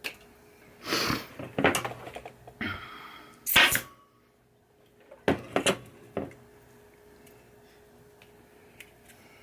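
Hands working wires and small hand tools on a pinball playfield: a run of short rustles and clicks in the first four seconds, the loudest about three and a half seconds in, then a few sharp clicks. A faint steady hum underneath.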